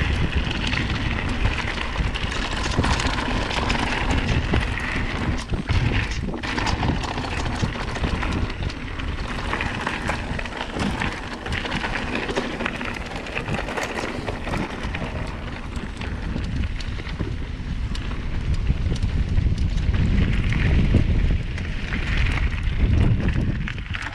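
Mountain bike riding fast down a rough trail: steady tyre noise with constant knocking and rattling over the ground, and wind buffeting the microphone in a low rumble that grows louder late on.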